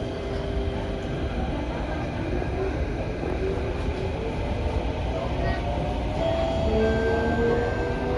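Inside a Kawasaki & CRRC Sifang CT251 metro train car pulling away: steady rumble of the running gear, with the traction motors' whine rising steadily in pitch as the train accelerates.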